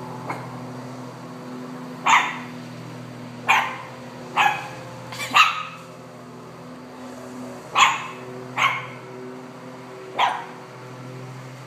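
Pomeranian puppy barking, about eight short sharp barks at uneven intervals, in reaction to a lawn mower. Under the barks the lawn mower's engine runs with a steady hum.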